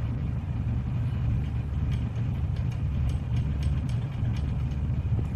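Steady low hum of an idling engine, with faint light clicks scattered through the middle.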